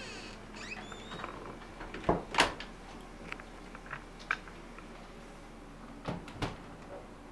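Knocks and clicks: two pairs of dull thumps, about a third of a second apart, one pair about two seconds in and another about six seconds in, with faint clicks scattered between.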